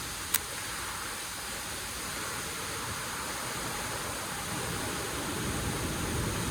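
Steady rushing of a mountain stream, an even hiss of flowing water, with a single sharp click shortly after the start.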